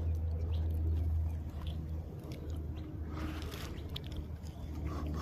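Someone chewing and crunching food close to the microphone, with small scattered clicks, over a steady low hum.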